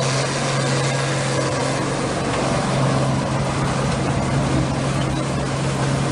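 Two-shaft industrial shredder running: a steady low machine hum under a constant grinding noise as its toothed rotors tear up chunks of scrap.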